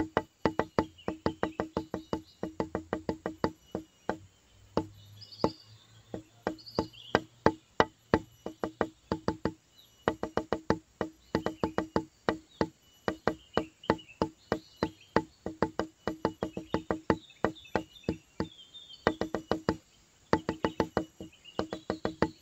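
Background music with a quick, clicking percussive beat and a repeated low note, pausing briefly a few times.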